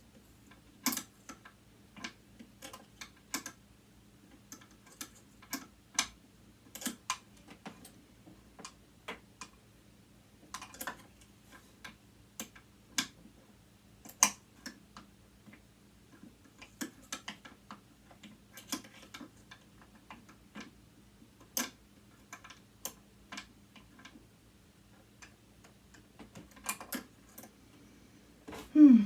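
A screwdriver and small metal parts clicking and tapping as screws are worked out of a sewing machine motor: irregular sharp clicks, about one or two a second, with a louder knock near the end.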